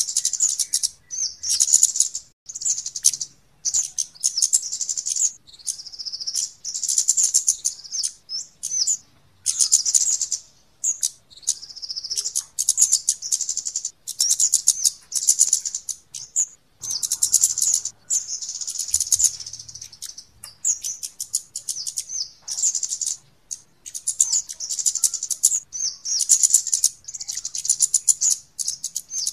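Flowerpecker calls: rapid, sharp, high-pitched 'cit' notes in bursts of one to two seconds with short gaps between, repeating over and over. This is a lure recording (suara pikat) of a kemade calling, used to draw in other birds of its kind.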